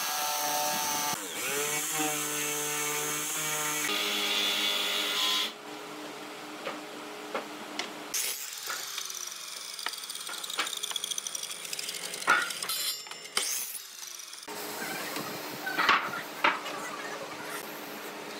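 A run of short power-tool clips: a Makita jigsaw cutting pine board at the start, then other power tools running in turn, with a quieter stretch of sharp clicks and knocks from wood being handled.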